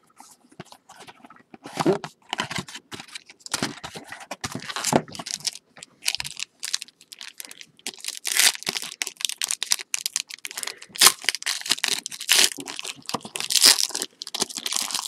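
A sealed trading-card box and its pack being torn open and handled: wrapper tearing and crinkling, with cardboard and cards rustling in a quick run of short scrapes and clicks that grows busier in the second half.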